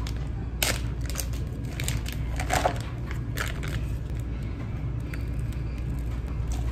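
Plastic food packaging crinkling and crackling in the hands in a few short bursts as a pouch of tteok rice cakes is opened and emptied into a paper cup, the loudest burst about two and a half seconds in. A steady low hum runs underneath.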